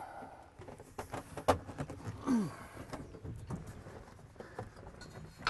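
Handling noise from hands pressing and shifting a vinyl dash pad on a car's metal dash: a few sharp knocks and clicks, and a short falling squeak a little over two seconds in.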